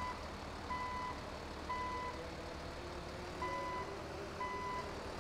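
Reversing alarm beeping: short, even electronic beeps about once a second, four in all, with a longer pause after the second.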